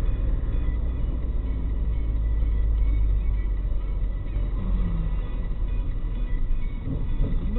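Car engine and road noise heard from inside a moving car, a steady low rumble.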